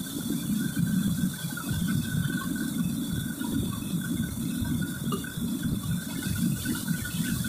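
Water running steadily from the wok range's tap and splashing into the basin below, over a low steady rumble.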